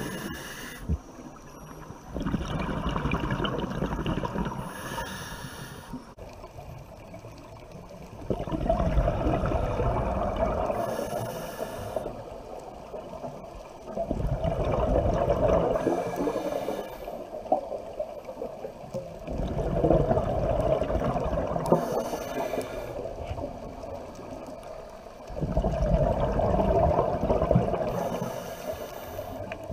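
A scuba diver breathing through a regulator underwater: five bursts of exhaled bubbles, about one every six seconds, each a few seconds of bubbling rumble ending in a short hiss, with quieter pauses between.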